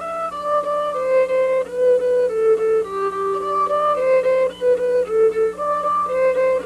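Violin playing a melody of bowed notes, each held about half a second.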